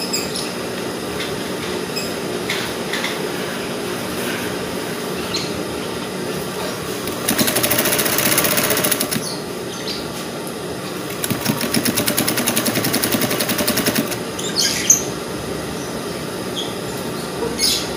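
Sewing machine stitching a seam in two short runs, each about two seconds, with a brief pause between them. Small handling clicks as the fabric is guided fill the stretches before and after.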